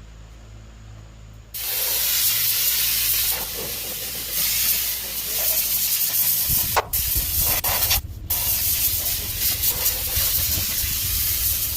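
Compressed-air paint spray gun spraying, a steady hiss that starts about a second and a half in and cuts out briefly twice as the trigger is let off and squeezed again. A low steady hum joins in about six seconds in.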